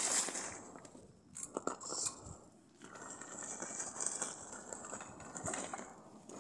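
A six-wheeled rover robot's rubber tyres crunching and scrabbling over gravel and pine needles as it drives up to a log pile, with a few sharp clicks about a second and a half in. A high whine swells and fades through it.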